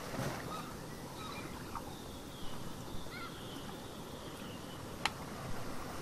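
Steady wash of ocean waves, with faint bird chirps in the first half and a single sharp click about five seconds in.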